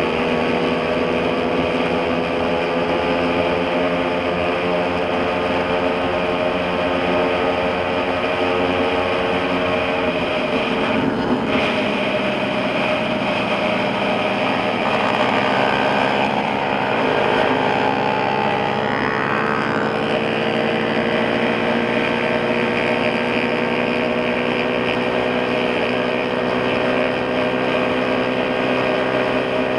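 Motorcycle engine running at road speed under onboard wind and road noise. The engine note dips and breaks about ten seconds in, then climbs slowly through the second half as the bike speeds up.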